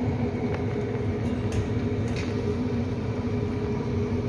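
Steady motor hum with a low rumble from a kitchen appliance, holding an even pitch throughout, with a few light clicks of a metal ladle against the pot.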